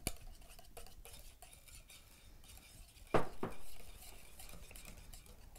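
Wire whisk beating a cream cheese mixture in a glass mixing bowl: a fast, irregular run of light clicks and scrapes as the wires strike the glass. A little past three seconds in come two louder knocks.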